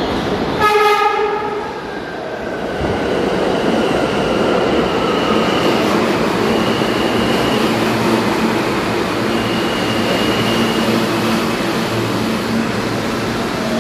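R160B subway train sounding one horn blast, about a second long, just after the start. It then runs into the station and past, with a steady rumble of wheels on rail and a high whine that comes and goes several times.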